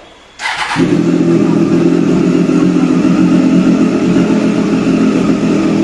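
A motorcycle engine starts about half a second in and settles at once into a steady, loud idle.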